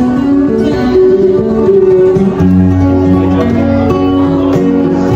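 Guitar music: plucked acoustic guitar notes, with a low sustained bass note coming in about halfway through.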